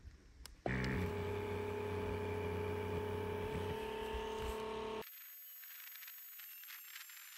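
Electric air pump of an Aerogogo automatic inflatable tent switches on under a second in and runs with a steady hum and rush of air, filling the tent's air beams. It stops abruptly about two-thirds of the way through.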